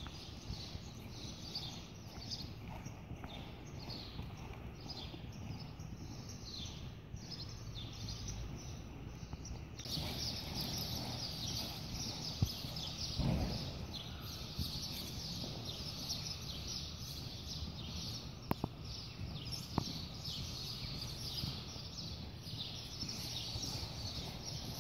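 Faint hoofbeats of a ridden horse loping on soft arena dirt, over a steady background hiss. Small birds chirp over and over during the first part, and a few sharp clicks come in the second half.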